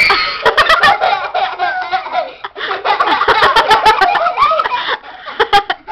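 Several children laughing loudly in quick bursts, with short lulls about two and a half seconds in and again near the end.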